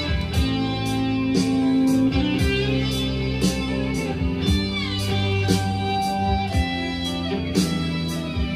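Guitar-led music with bass notes, sliding guitar lines and a drum beat about once a second, played back from a cassette on a Tandberg TCD 440A deck.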